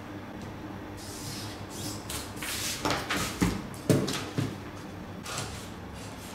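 Paper pattern pieces rustling and a plastic French curve ruler being slid and set down on a cutting mat, with a few short knocks, the sharpest about four seconds in.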